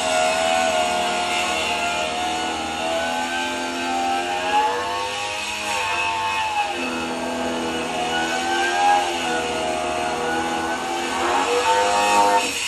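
Frightened young cat giving long, wavering yowls, with a short break for breath about halfway through.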